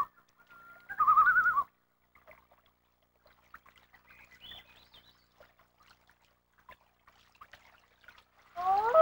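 Common loon calling: two short quavering tremolo calls, the loon's 'laugh', in the first two seconds, then a lull, then near the end a wail that rises in pitch.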